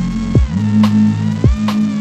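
Electronic music: a steady beat of kick drum and snare over sustained bass notes and a synth melody line.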